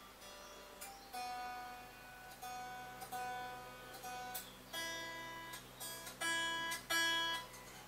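Snap Dragon Snapaxe A folding travel guitar, unplugged, being tuned: single strings plucked again and again while the tuning pegs are turned, each note ringing briefly. A higher string is plucked first, then a lower one from about five seconds in.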